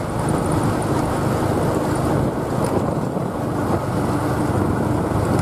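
A vehicle running while it rides along a road, with wind rushing on the microphone: a steady, loud rumble throughout. A faint steady tone joins a little past halfway.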